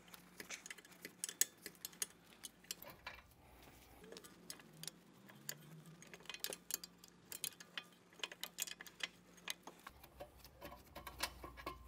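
Faint ratchet wrench clicking in quick, irregular runs as the two 15 mm bolts holding the rear brake caliper carrier are backed out.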